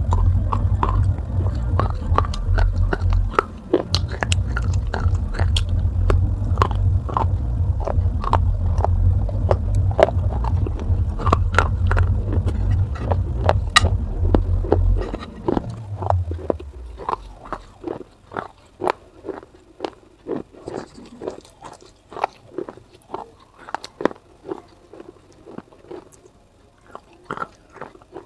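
Biting and chewing on pieces of fired clay pot: sharp, gritty crunches and crackles, repeating many times. A low steady rumble runs under the first half and fades out about fifteen seconds in, after which the crunches come more sparsely, about one or two a second.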